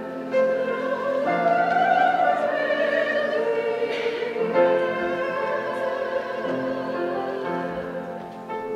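Mixed choir of men and women singing a Christmas song in held chords, accompanied by an upright piano.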